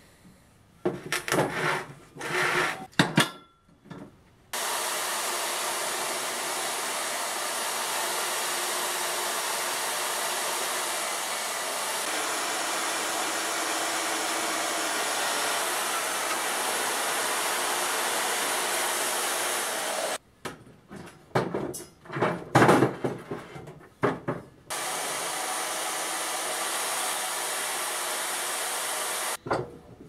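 Magnetic-base drill motor running steadily while drilling into steel square tube, with a few knocks of steel being handled before it starts. The drill stops about twenty seconds in for a few seconds of metal clanks, then runs again until near the end.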